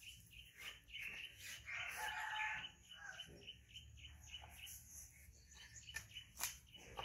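A rooster crowing once, about two seconds in, over a fast, steady ticking in the background.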